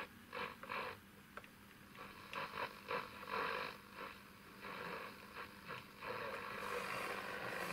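Roberts RFM3 transistor radio being tuned across the AM band: static and crackle with brief snatches of signal coming and going, turning into a steadier hiss near the end, over a faint steady hum.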